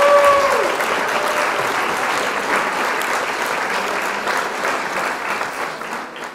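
Crowd applauding: many hands clapping together. The last held notes of music die away in the first second, and the applause fades out near the end.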